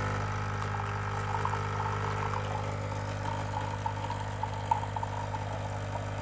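Nescafé Dolce Gusto pod coffee machine running its pump with a steady hum, with faint sputtering as the milk pod dispenses into the cup.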